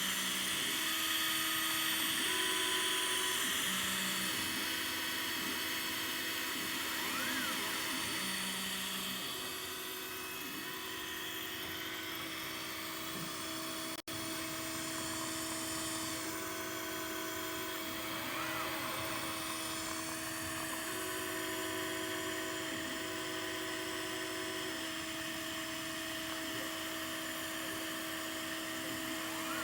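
Home-built CNC laser engraver with an Atomstack M50 laser module running: a steady whir from the module's cooling fan, with the stepper motors whining in short tones of changing pitch as the head moves. The sound cuts out for an instant about halfway.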